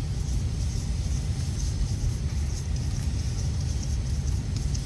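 Steady low rumble with faint, scattered high ticks.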